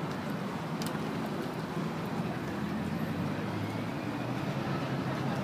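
Steady road traffic noise from a freeway, with a low engine hum that grows a little stronger in the second half.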